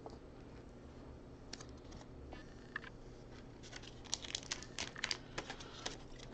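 Faint crinkling and rustling of trading cards, plastic card sleeves and foil pack wrappers being handled, with small plastic clicks that get busier in the second half.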